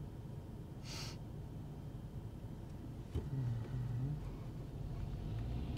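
Low steady rumble of a car's idling engine heard inside the cabin, with a short breath-like hiss about a second in. A little after three seconds there is a click and then a low hum that rises briefly.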